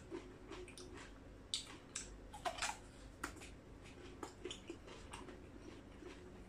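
A man eating at close range: soft crunches, smacks and mouth clicks as he bites and chews a piece of crisp green vegetable, scattered irregularly over a faint steady hum.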